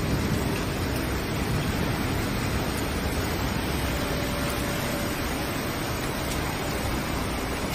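Floodwater rushing in a torrent along a street: a steady, even rush of water.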